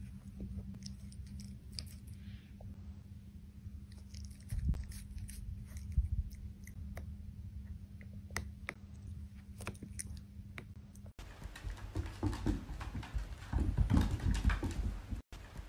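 Dachshund puppy chewing and gnawing on toys, with small scattered clicks. About eleven seconds in, this gives way to a dog's claws pattering and scrabbling quickly on a hardwood floor as it spins.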